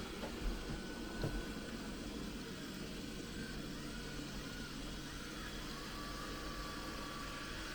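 Robot vacuum cleaner running: a steady motor whir, with two soft knocks about half a second and just over a second in.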